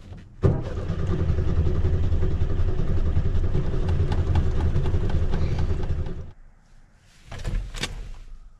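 Volkswagen Beetle engine being cranked over by the starter for about six seconds without catching, then cut off abruptly as the key is released; the car won't start.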